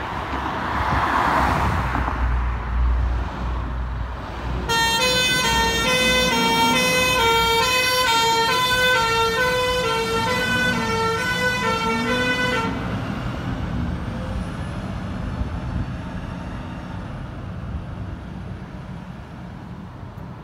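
Fire engine's diesel pulling away loudly, then its two-tone siren sounding alternating high and low notes for about eight seconds, starting about five seconds in and cutting off abruptly. The engine then fades into the distance.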